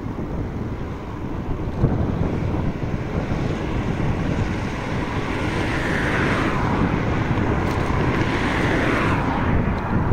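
Wind buffeting the microphone on a moving bicycle, a steady low rumble. A brighter hiss swells about six seconds in and fades near the end.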